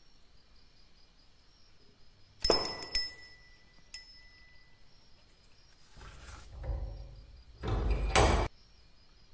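Small metal bell struck three times, each a sharp ding with a clear ringing tone: two about two and a half and three seconds in, a lighter one about a second later. Near the end comes a loud rushing noise lasting under a second.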